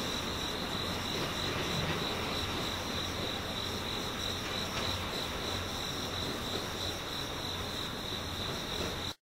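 Crickets chirping in a steady high trill over a low steady rumble; the sound cuts off suddenly shortly before the end.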